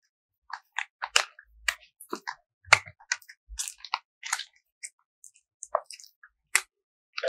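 Slime mixed with soft cloud clay being stretched, folded and pulled apart by hand, giving irregular clicks, small pops and crackles, several a second.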